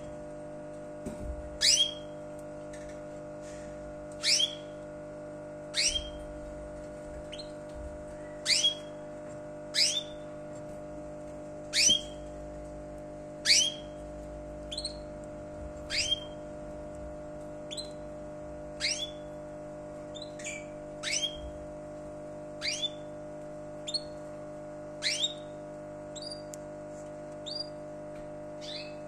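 A small caged bird repeating short, sharp chirps, each sweeping steeply down in pitch, about one every second or so. A steady low hum runs underneath.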